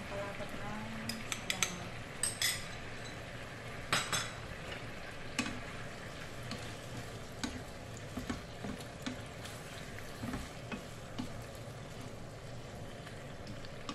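Pork and red bell pepper frying in a sauce in a pan, with a steady sizzle, while a wooden spatula stirs and scrapes the pan in irregular clicks and knocks, the sharpest in the first six seconds.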